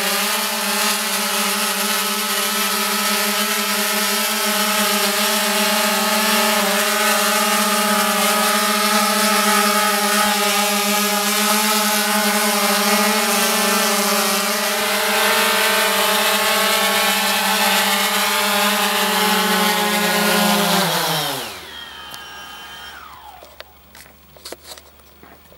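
DJI Phantom 3 Professional quadcopter's four motors and propellers buzzing steadily in a close hover. About 21 seconds in, the pitch falls steeply and the sound dies away as the motors spin down after landing. A few faint clicks follow near the end.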